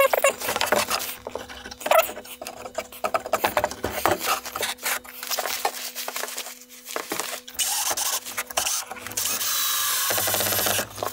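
Knocks and scrapes as pine frame pieces are handled and glued. Near the end a cordless drill bores a pilot hole into the softwood, running steadily for a couple of seconds.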